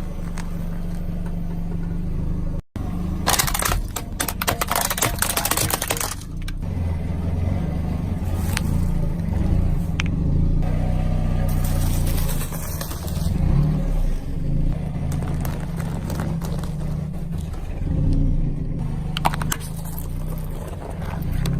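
A car engine running at low speed, with loud bursts of crackling and crunching a few seconds in and again about halfway, typical of things being crushed under the tyres.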